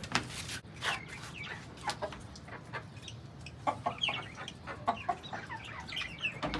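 Domestic chickens, a rooster and hens, clucking: a run of short clucks scattered throughout.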